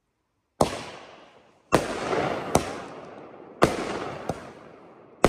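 A multi-shot consumer firework cake firing aerial shells: after a brief silence, about six sharp bangs at roughly one a second, some louder and some smaller. Each one trails off over about a second.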